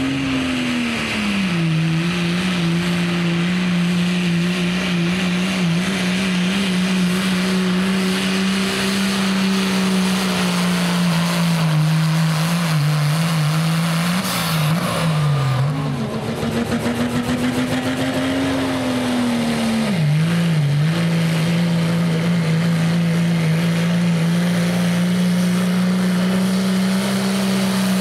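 Diesel pickup trucks at full throttle pulling a weight-transfer sled in a 2.6 smooth-bore class pull: a loud, held engine drone that wavers and sags in the middle, rises and dips again, then holds steady.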